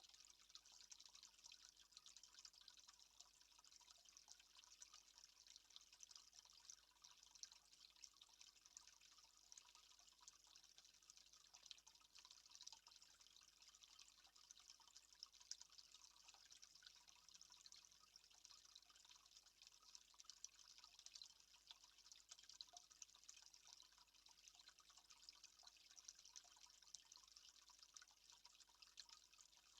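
Near silence: a faint, steady crackling hiss with no distinct events.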